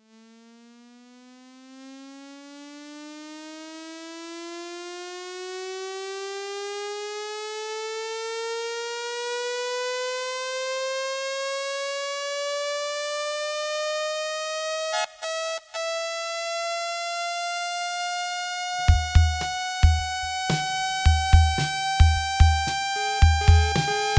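Electronic music intro: a single synthesizer tone slowly rises in pitch and swells in loudness, cutting out briefly two-thirds of the way through. About five seconds before the end, a steady kick-drum beat comes in under it.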